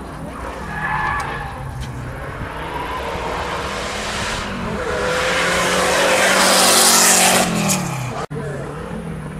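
A rally car goes past at speed, engine running hard. Its note rises as tyre noise swells to a peak about three-quarters of the way in, then the engine note drops away as it passes. The sound cuts off abruptly.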